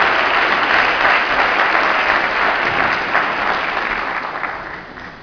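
Audience applause, dense clapping that fades away over the last second or so.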